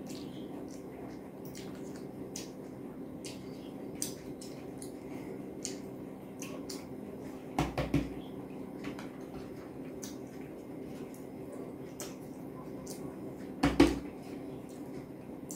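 Eating by hand from a plate: fingers gathering and pressing rice on the plate among small wet chewing clicks, with two louder knocks against the plate, one about halfway through and one near the end, over a steady low hum.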